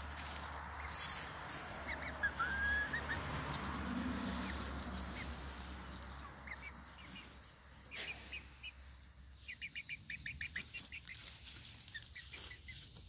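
Young hens stirring on a straw nest among shrub leaves, with rustling of leaves and straw. A few faint chirps come about two seconds in, and a quick run of short, high chirps near the ten-second mark.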